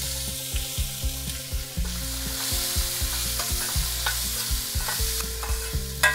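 Chopped small onions sizzling as they fry in hot ghee in a stainless steel kadai, stirred with a metal spatula that clicks and scrapes against the pan, the clicks coming more often and sharper in the second half.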